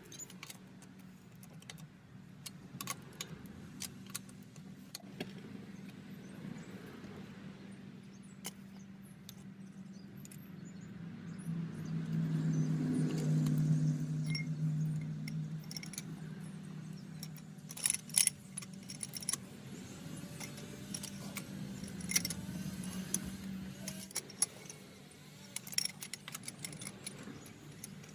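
Small metal tools clinking and rattling in irregular clicks, over a steady low hum that grows louder for a few seconds in the middle.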